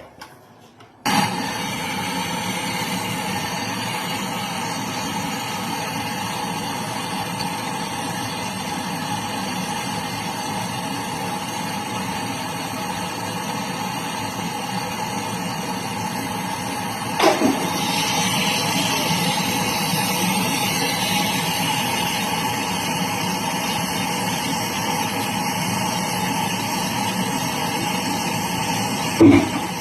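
A steady mechanical running sound with a few held tones starts abruptly about a second in and runs on. There is a sharp click about seventeen seconds in, after which it is slightly louder.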